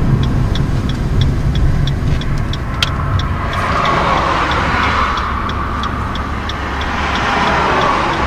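A car heard from inside the cabin pulling out at a junction and picking up speed, engine and tyre noise rising from about three and a half seconds in. Over it the turn-signal indicator ticks about twice a second.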